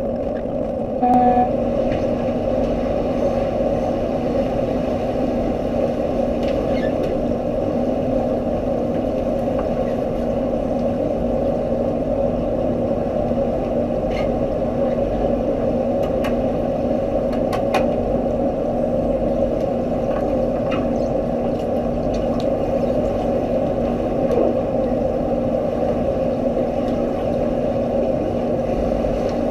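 Steady underwater drone of a swimming pool picked up by a submerged camera, with a brief tone about a second in and a few faint clicks in the middle.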